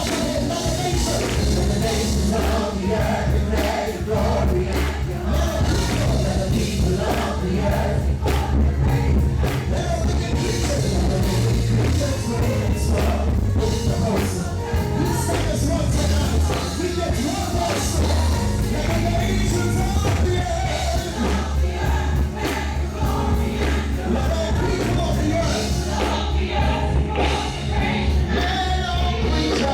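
Live gospel worship music: a band with bass and drums accompanying a group of singers in a steady beat.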